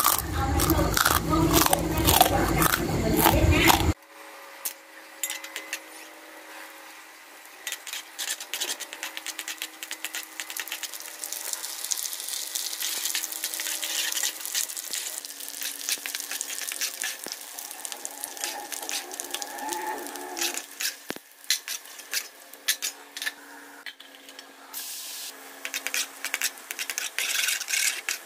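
Hot oil sizzling and crackling in a wok as pork pieces and then minced garlic deep-fry, with a wire-mesh strainer stirring through the oil. A louder, different sound fills the first four seconds and stops abruptly.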